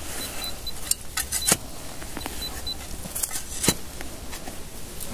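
Digging by hand in soil to free a buried metal object: irregular scrapes and sharp knocks of the tool and soil, the loudest about a second and a half in and again near four seconds. A faint high steady tone comes and goes.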